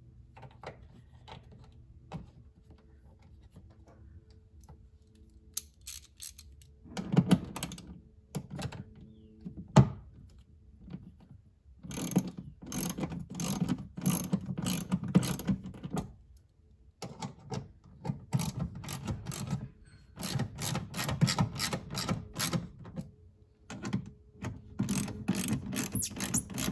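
Hand ratchet clicking in repeated runs of fast clicks, starting about seven seconds in, as the speaker's mounting bolts are driven in.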